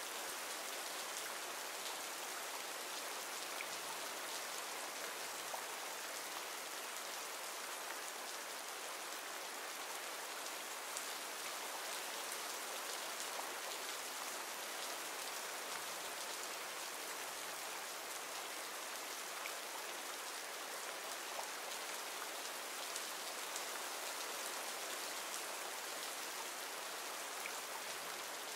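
Rain ambience track: steady rain falling on a surface, an even hiss with faint scattered drop ticks.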